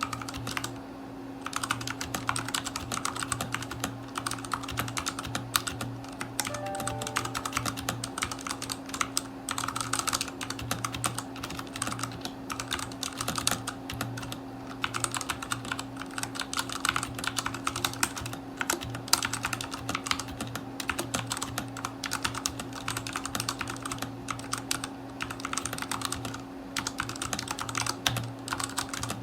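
Continuous fast typing on a Redragon K530 mechanical keyboard with tactile brown switches: dense, irregular keystroke clacks with brief pauses. A steady low hum runs underneath, and a few short falling tones sound about seven seconds in.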